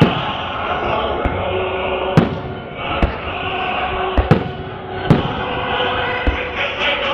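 Fireworks going off: sharp bangs of bursting shells, about one a second, some in quick pairs, over a steady background of crowd voices.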